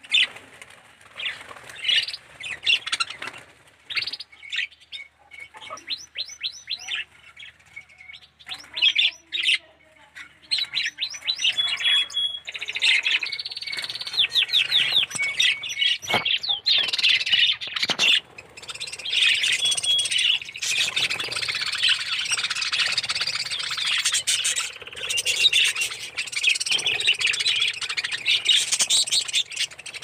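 A flock of budgerigars chirping and chattering: scattered separate chirps at first, thickening into a dense, nearly continuous chatter from about halfway through.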